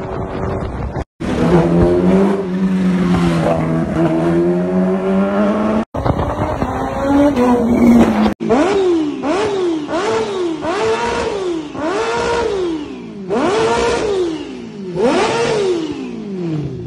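Kawasaki Ninja H2's supercharged inline-four engine running on the road, then revved in place in a series of quick throttle blips, each one rising sharply and falling away, about one a second. The sound breaks off abruptly a few times between clips.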